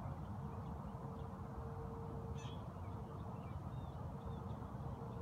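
Outdoor ambience: a low, steady rumble with a faint steady hum, and a few faint bird calls, one about two and a half seconds in.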